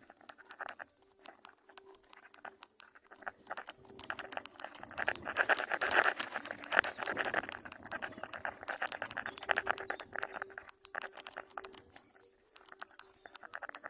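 Birds moving in a nest: rustling and pattering with many quick clicks, swelling louder in the middle.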